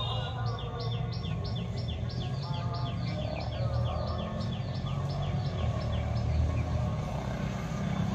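A bird chirping over and over, a quick series of short downward notes at about three a second, over a steady low rumble.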